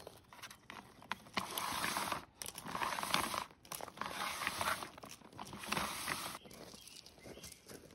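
Crinkling and rustling of something being handled, in a series of bursts about a second long with small clicks between them, quietening near the end.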